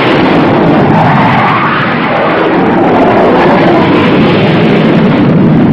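Loud, steady engine noise with a dense rushing hiss.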